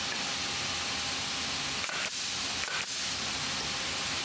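Steady rushing hiss like running water, with two short faint clicks about two seconds and three seconds in.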